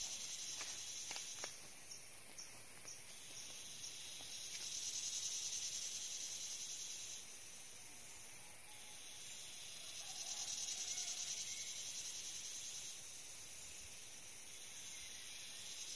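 A chorus of insects calling: a high hiss that swells and fades in waves every few seconds. A few faint clicks come in the first couple of seconds.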